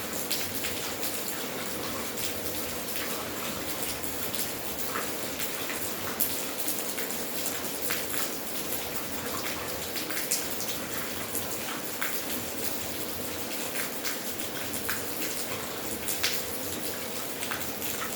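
Steady rain falling, with scattered louder drops ticking sharply close by.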